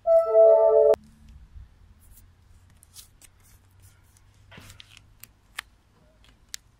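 A loud, steady electronic chord of several tones lasts about a second and cuts off abruptly. Then come faint scattered clicks and a short rustle from a paper card being handled.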